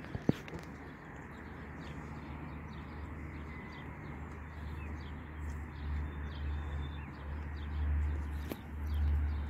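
Outdoor lakeside ambience: a low, gusty rumble of wind on the microphone that swells near the end, with faint bird calls. A single sharp click just after the start.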